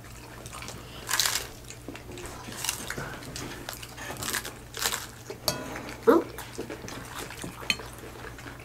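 Hard corn taco shells crunching as they are bitten into, a few sharp crunches spaced a second or more apart, with chewing between them.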